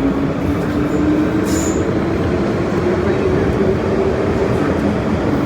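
MTR Island Line Metro-Cammell M-Train electric multiple unit running between stations: a steady rumble of wheels and car body, with a motor whine that rises slowly in pitch. A brief high click comes about one and a half seconds in.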